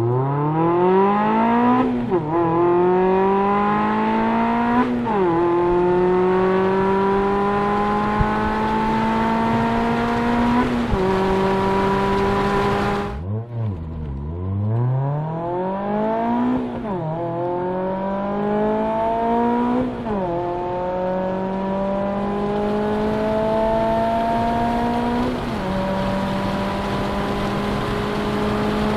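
Mazda ND2 Miata four-cylinder engine accelerating hard through the gears with an aftermarket or stock exhaust note. The pitch climbs, then drops at each upshift, three shifts per pull. The first pull cuts off abruptly about halfway through, and a second pull through the gears follows.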